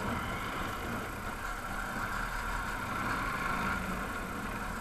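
Steady running noise of a motorbike being ridden, heard from a helmet-mounted action camera, with no distinct events.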